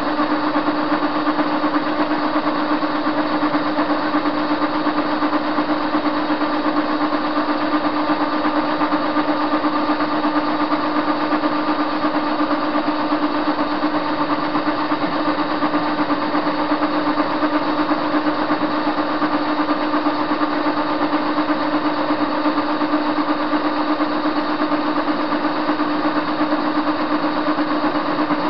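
Soviet-era TV-16 screw-cutting lathe running steadily while turning a metal bar, its motor and gear train giving a constant whine.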